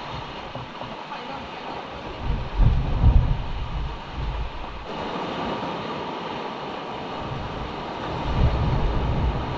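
Sea surf washing over a rocky shore, a steady rushing noise. Deep rumbling surges rise about two and a half seconds in and again near the end.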